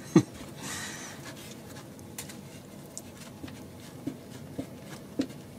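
Small hand screwdriver turning a screw into the plastic shock mount of an RC truck: faint scraping and scattered light clicks. A single soft thump just after the start is the loudest sound.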